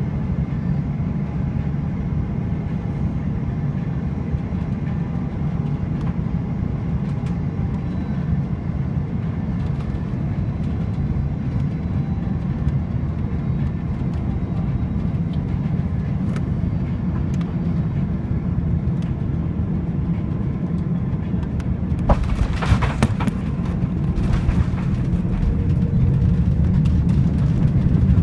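Airbus A330-300 cabin noise on final approach: a steady low rumble of engines and airflow. About 22 seconds in, the firm main-gear touchdown brings a sudden rattling jolt lasting a few seconds, then the rumble grows louder as the wheels roll down the runway.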